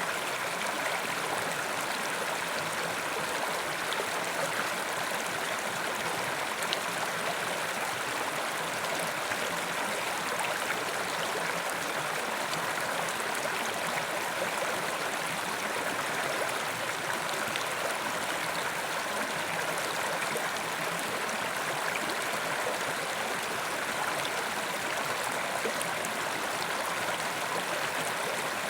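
A mountain river running steadily: a constant, even rush of flowing water.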